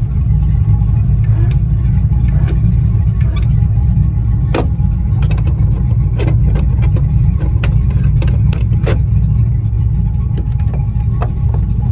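A steady low motor rumble, with a run of sharp clicks and knocks as the metal deck-fitting caps are handled and snapped shut.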